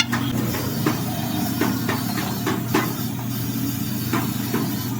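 An engine running steadily with a low hum, with irregular sharp knocks and clicks on top, about eight in five seconds.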